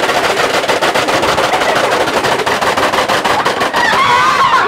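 Rapid, continuous clicking of a Pie Face Showdown toy's plastic mechanism as two children work its handles against each other. Near the end the clicking gives way to a child's drawn-out cry.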